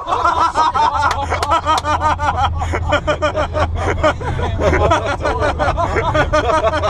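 People laughing in a moving car: a long run of quick, repeated peals of laughter over the steady rumble of the car's cabin and road noise.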